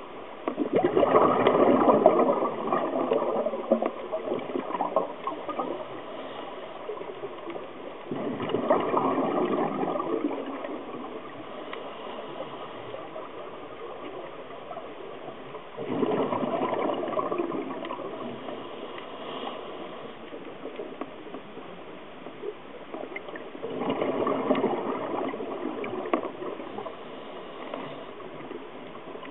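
Scuba diver's exhaled breath bubbling out of the regulator, a gurgling rush underwater. It comes in four bursts about eight seconds apart, each starting sharply and fading over a few seconds.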